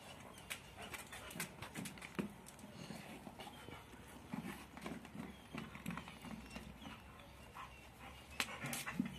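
Rottweiler nosing a plastic bowl across a tiled floor and picking it up in its mouth: faint scrapes and scattered knocks of the bowl on the tiles.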